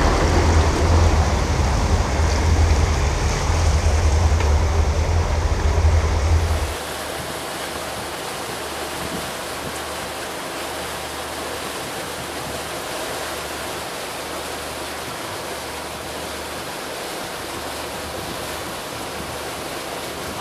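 Steady low rumble of a Sea Ray 330 Sundancer's MerCruiser engines under way, with water and wind rushing past the boat. About seven seconds in it drops suddenly to a quieter, even rush of wind and water.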